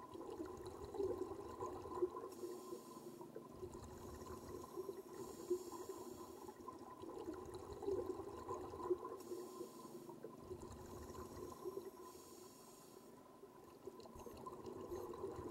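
Faint underwater sound of a scuba diver breathing through a regulator: hissing inhalations every few seconds alternating with low bubbling exhalations, over a steady hum.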